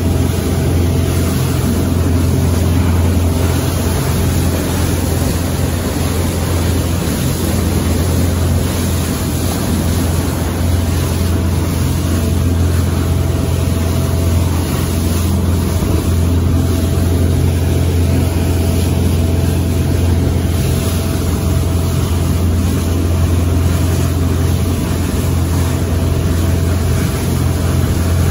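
Arvor motor boat's Mercruiser diesel inboard running steadily under way, a constant low engine hum with a faint steady whine above it, and water rushing past the hull.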